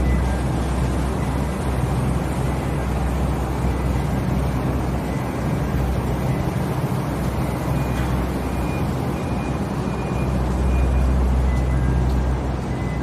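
Steady low machinery hum under a continuous wash of noise, with a run of short, high electronic beeps about two-thirds of the way through.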